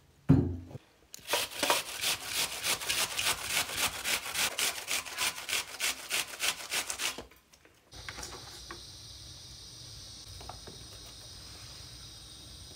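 A thump, then a red onion being grated on a metal box grater: quick, even rasping strokes, about four a second, for some six seconds before stopping suddenly. After a short pause only faint scrapes are heard as garlic is rubbed on the grater.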